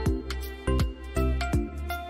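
Background music with a steady beat: deep bass drum hits under short melodic notes.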